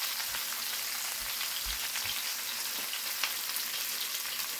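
Sliced zucchini, yellow squash, onions and green peppers sizzling steadily in hot olive oil in a skillet, with a few light crackles.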